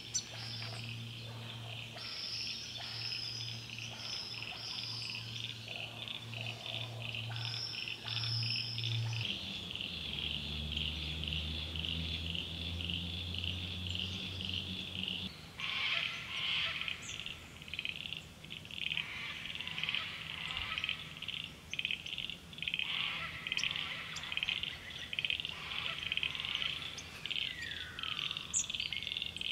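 A chorus of frogs calls in a dense, rapid pulsing that grows louder and fuller about halfway through. Over it, in the first part, a small bird gives short high notes again and again.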